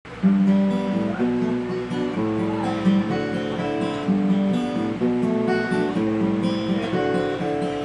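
Acoustic guitar playing the opening chords of a song, the chords changing about every second.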